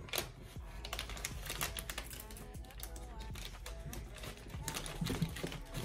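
Faint, irregular small clicks and light rustling of hands handling wiring and small parts on a dual fuel pump hanger assembly.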